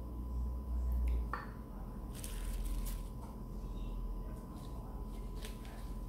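Kitchen handling sounds while making a sushi roll: a low rumble in the first second, a utensil clinking once about a second in, then soft crinkling and rustling as a fresh lettuce leaf is picked up and handled, with a few light ticks.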